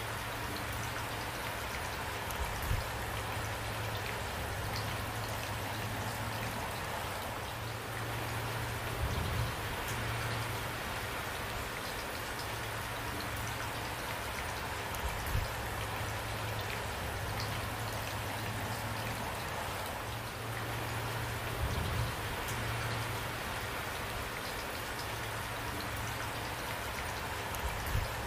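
Steady rain falling, with a soft low thump recurring about every six seconds.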